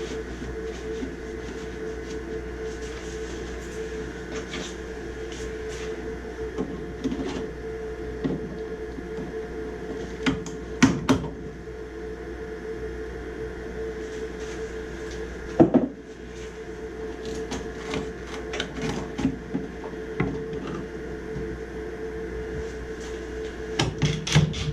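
Scattered clicks, knocks and scraping from hands-on work on a furnace's parts, over a steady mechanical hum. The loudest knocks come about eleven and sixteen seconds in, with a quick cluster near the end.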